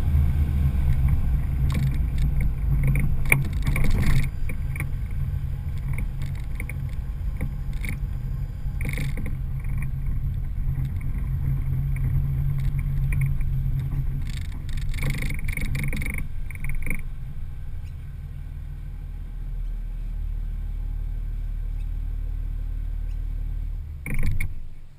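Toyota Land Cruiser HDJ80's 4.2-litre turbo-diesel straight-six drones steadily under way, with several short rushes of louder noise over it. About two-thirds of the way in, the drone eases to a lower, steady idle. A brief loud noise comes just before the end.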